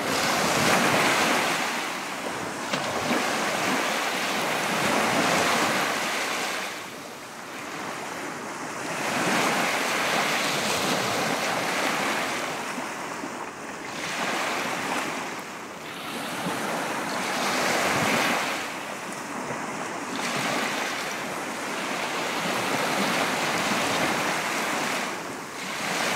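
Sea waves breaking and washing ashore, a steady hissing surf that swells and eases in slow surges every few seconds.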